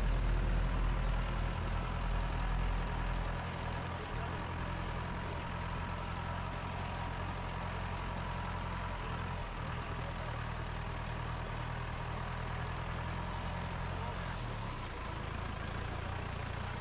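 A vehicle's engine running with a steady low hum that drops in level a few seconds in and shifts in pitch again near the end.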